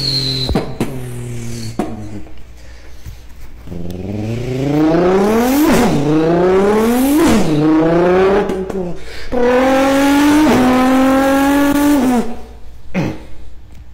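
A person imitating a car engine with their voice, revving up through the gears: the pitch climbs and drops sharply at each shift three times, then holds high with one more shift.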